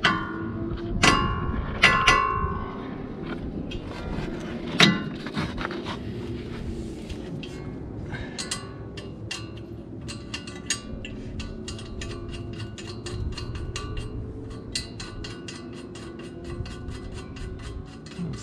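Metal tools and suspension parts clinking a few times with a short ring. This is followed by a long run of quick, even clicks, about four a second, from a ratchet being worked to run down nuts on the front suspension.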